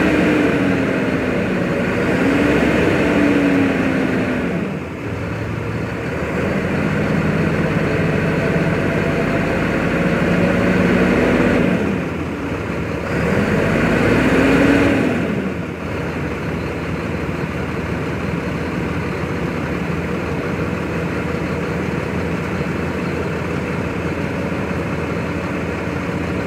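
A 2004 Mack dump truck's diesel engine revved up and down several times and held at raised speed to drive the hydraulic hoist that tips the dump body; about two-thirds of the way through it drops to a steady idle as the body comes back down.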